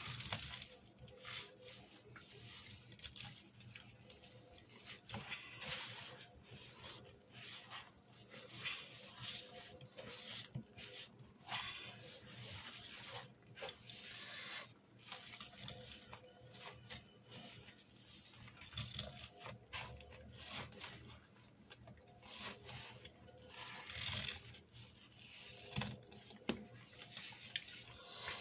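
A powder-loaded sponge squeezed and swished by a rubber-gloved hand in a tub of soapy water: irregular wet squelches, splashes and crackling suds.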